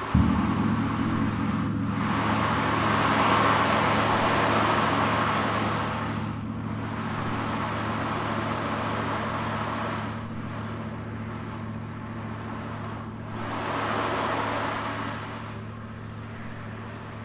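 A gong struck once right at the start and left ringing with a steady low hum, while an ocean drum's rolling beads swell and fade like surf in repeated waves.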